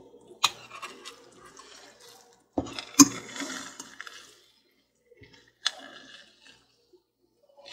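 A metal spoon stirring wet scrambled eggs in a stainless steel pan, scraping and squelching through the mixture, with three sharp clinks of spoon on pan, the loudest about three seconds in.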